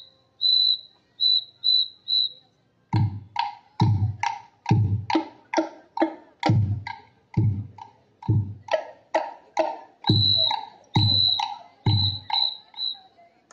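School marching band: five short, high whistle blasts, then the drums play a steady cadence of strokes, about two and a half a second. More short whistle blasts sound over the drumming near the end.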